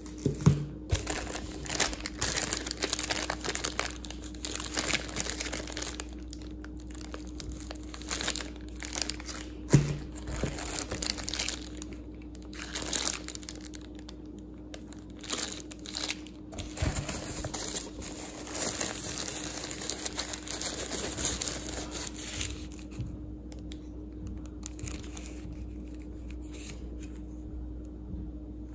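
Packaging being handled and unwrapped: irregular crinkling and rustling of plastic wrap, with a couple of sharper knocks near the start and about ten seconds in, over a steady low hum.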